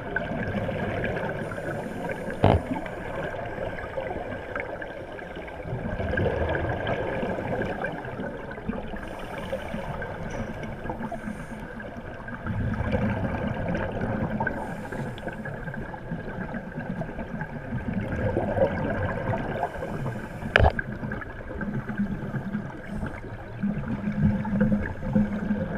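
Underwater sound picked up by a camera in its housing: a steady muffled water noise with gurgling swells every few seconds, and two sharp knocks, one a couple of seconds in and one near the end.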